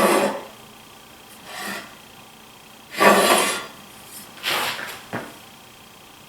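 Straight edge being set down and slid across a freshly planed wooden board: four short scrapes, then a sharp tap about five seconds in.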